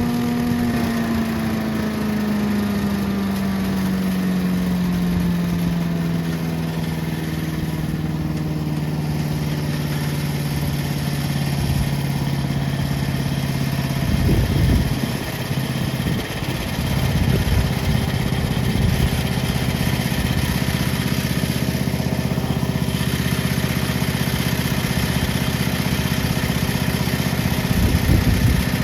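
MTD chipper/shredder's gas engine running steadily; its speed drops over the first few seconds and then holds lower. Short clattering spells about halfway through and near the end come from oak leaves going through the shredder.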